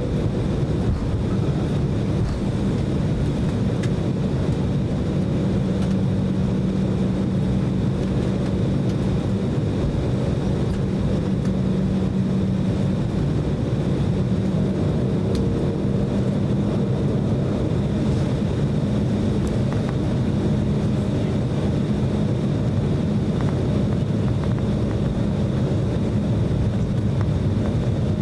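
Cabin noise inside an Embraer E190 taxiing, its two GE CF34-10E turbofans at low taxi power: a steady rushing drone with a constant low hum.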